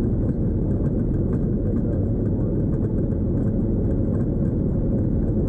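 Golf cart driving along a dirt forest track: a steady low rumble of its running gear and tyres on the ground, with faint small ticks throughout.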